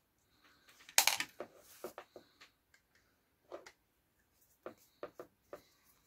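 Scattered light clicks and taps of a screwdriver, small screws and plastic hair-dryer parts being handled during disassembly, with one sharper click about a second in.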